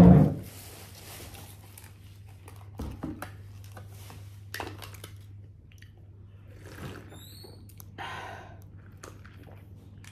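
A loud thump as an object is set down on a wooden table, followed by small clicks, rustles and sips of someone eating and drinking at the table, with a few short high chirps about seven seconds in.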